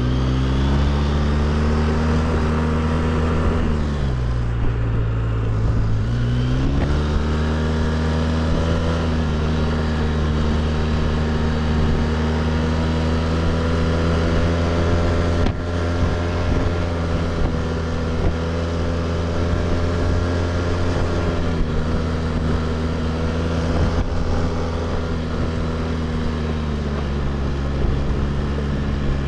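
Quad bike (ATV) engine running while riding. Its note drops as the throttle eases off about four seconds in, then climbs back a couple of seconds later and holds steady.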